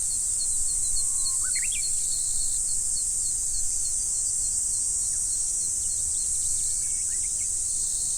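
Insect chorus: a steady high-pitched buzz with a run of short, evenly spaced chirps, and a few quick rising bird calls about a second and a half in and again near the end.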